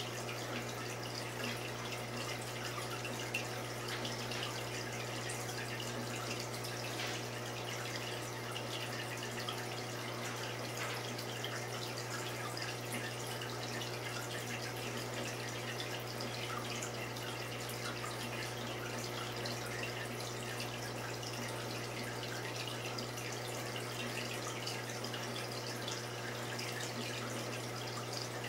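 Saltwater aquarium water circulating: a steady, fine trickling and crackling of moving water over a constant low hum from the tank's pump.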